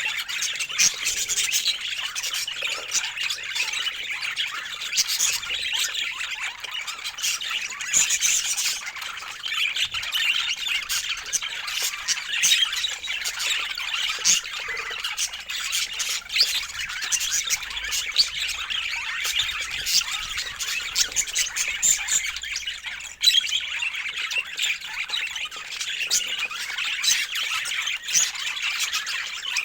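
Budgerigars chattering and warbling without pause, a dense run of chirps with sharp squawks mixed in.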